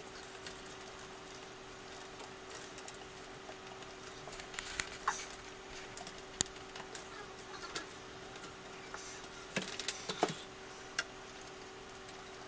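Small plastic wire-harness connectors being handled and pushed onto a circuit board: scattered faint clicks and rustles, with a few sharper clicks about two-thirds of the way in, over a faint steady hum.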